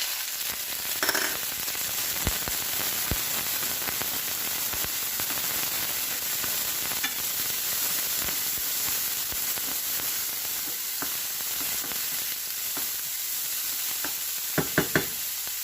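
Onions and minced garlic sizzling in hot oil in a frying pan: a steady hiss, with a few sharp clicks and a quick run of taps near the end.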